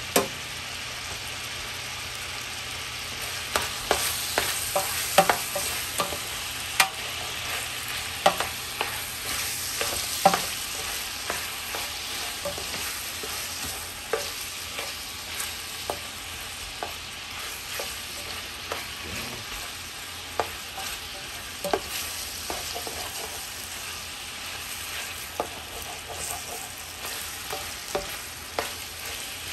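Sausage and pork sizzling steadily as they brown in hot oil in a pot, while a spoon stirs them and clacks and scrapes against the pot, most busily in the first third.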